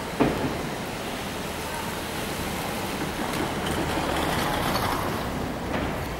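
Steady rushing hiss of a rain-soaked city street, swelling somewhat about four to five seconds in, with one sharp knock just after the start.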